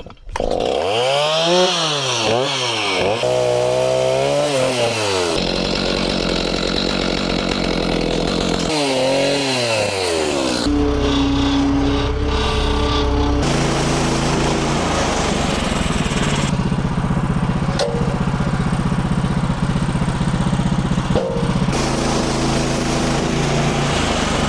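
Small gasoline engines at work on a white oak log, chainsaw and band sawmill, in several short clips run together. The engine pitch swings up and down in the first few seconds, then holds steadier.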